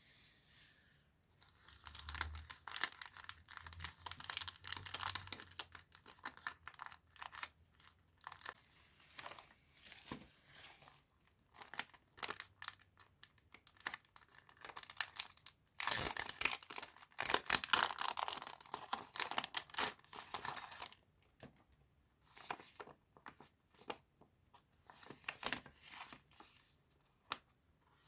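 Packaging being crinkled and torn open by hand in a series of dense crackling stretches with short pauses, loudest in a long stretch past the middle.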